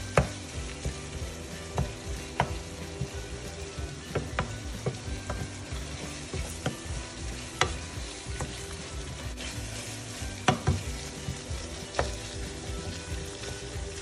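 Ground pork sizzling in a frying pan while a wooden spatula stirs and presses it apart, with irregular sharp knocks of the spatula against the pan every second or two.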